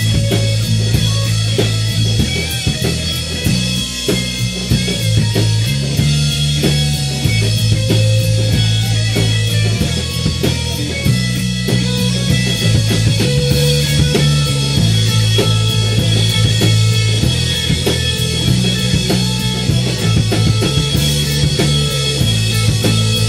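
Live rock band playing an instrumental passage with no singing: electric guitar over drums, with a repeating line of low notes that changes every second or two.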